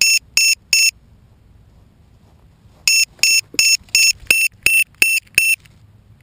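Electronic piezo buzzer aboard the tricopter beeping in quick even runs, about three short high beeps a second: three beeps, a pause of about two seconds, then eight more.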